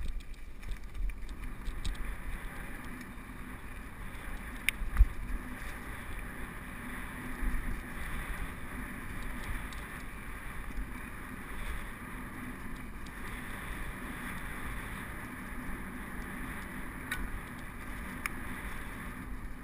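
Mountain bike riding fast down a dirt and gravel trail: a steady rush of wind on the microphone and tyre noise, with the bike rattling and knocking over bumps, the sharpest knock about five seconds in.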